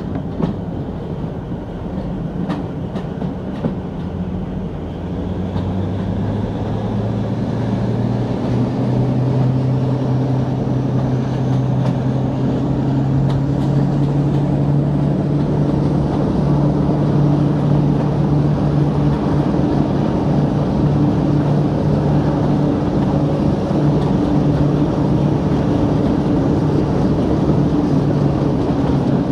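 Class 42 'Warship' diesel-hydraulic locomotive's Maybach engines opening up as it hauls its train, heard from a carriage window behind it. About five seconds in, the engine note climbs and grows louder, then settles into a steady hard-working drone. A high whine rises steadily in pitch over the next ten seconds or so, over the run of wheels on rail.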